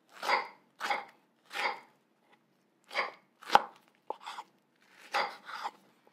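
Small kitchen knife slicing fresh strawberries on a wooden cutting board: about eight separate short cuts at uneven intervals, one landing with a sharper knock on the board about three and a half seconds in.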